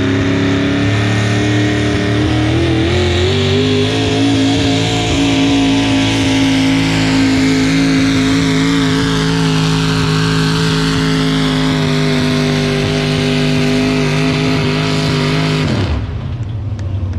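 Modified GMC pulling truck's engine running hard at high, steady revs as it drags the weight sled down the pulling track. The pitch climbs about two to three seconds in and then holds level, and the engine note cuts off suddenly near the end.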